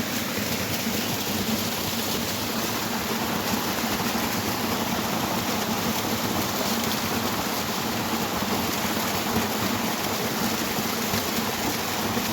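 Water of a waterfall rushing steadily, a continuous even hiss.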